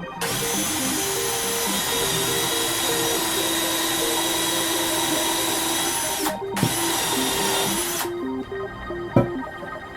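A power tool running with a steady whine for about six seconds. It stops briefly, runs again for about a second and a half, then cuts off. A sharp knock follows near the end, over background music.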